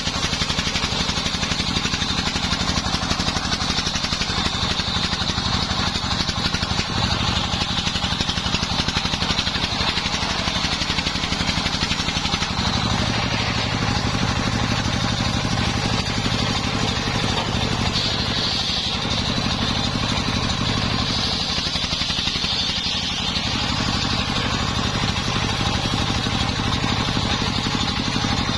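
Homemade engine-driven circular sawmill running steadily while its blade rips a mahogany log lengthwise: a constant engine drone under a high whine from the blade cutting the wood.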